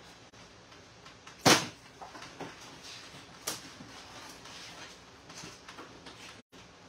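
The old plastic liner of a Vendo 81 door being pried off the steel door with a hand tool: a sharp crack about a second and a half in, a smaller one near halfway, and lighter scraping between.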